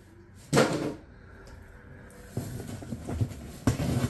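Cardboard box packaging handled during an unboxing: one loud scraping rustle about half a second in, then irregular rustling and a few light knocks in the last second and a half.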